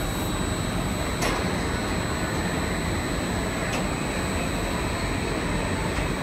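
Roller coaster train being hauled up a vertical chain lift hill, a steady mechanical running noise with a faint click about a second in and again near four seconds.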